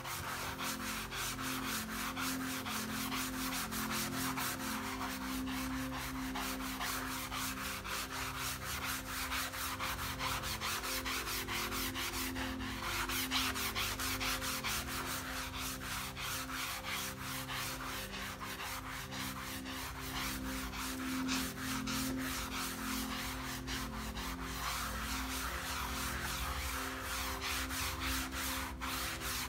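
Soapy sponge scrubbing a mouse pad in quick repeated strokes, a continuous wet, scratchy rubbing. A quiet music bed of held notes plays underneath.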